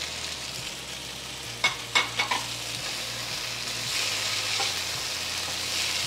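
Chicken and eggplant stir-fry sizzling in a nonstick wok over high heat as a wooden spatula stirs it, with four quick sharp clacks about two seconds in. The sizzle grows louder from about four seconds as the stirring gets going.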